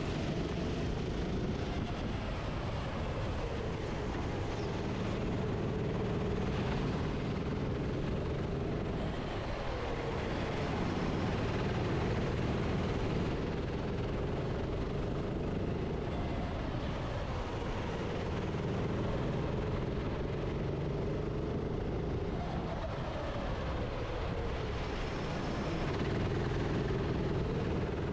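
Racing kart engine heard from onboard, its pitch climbing as it accelerates and dropping away under braking every few seconds as it laps the track.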